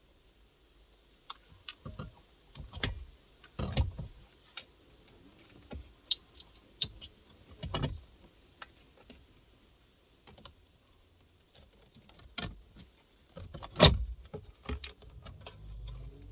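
Irregular clicks, taps and knocks of tools, wiring connectors and trim being handled in a cramped spot while earth wires are tracked down, with one sharp louder knock late on.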